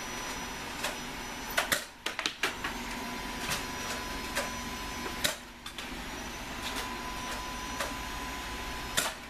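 Scattered sharp clicks and knocks from Nerf dart blasters being handled and fired, and foam darts striking, with a cluster of them about two seconds in and a few more spread through the rest.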